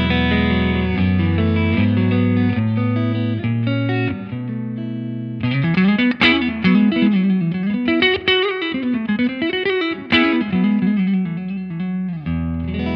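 Electric guitar played through a Laney Lionheart Foundry 60-watt amp's clean channel, with the EQ flat, the reverb at noon and the bright switch off. It begins with ringing clean chords, moves to a single-note melodic line with bends about halfway through, and returns to chords near the end.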